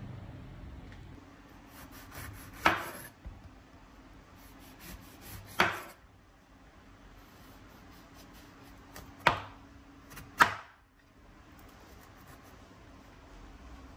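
A knife chopping down onto a wooden cutting board: four sharp knocks a few seconds apart, the last two about a second apart, each of the first three led in by a short soft cutting sound.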